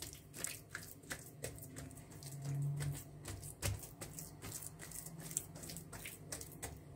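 Hands spreading oily poppy-seed paste over a sheet of yeast dough on a countertop: irregular soft slaps, squishes and clicks of palms and fingers working the sticky dough. A brief low hum sounds near the middle.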